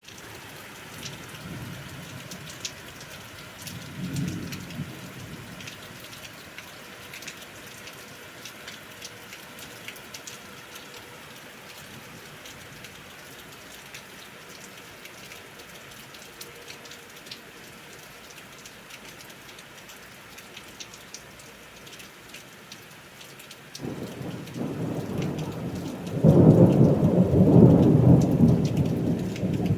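Steady rain with scattered drops pattering, and faint rumbles of distant thunder near the start and about four seconds in. About 24 seconds in a thunderclap breaks in suddenly, then grows into a loud, rolling peal a couple of seconds later that is still going at the end.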